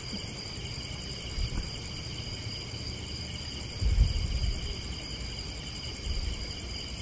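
Crickets chirping in a steady, high-pitched pulsing chorus, with a few low thuds about four seconds in.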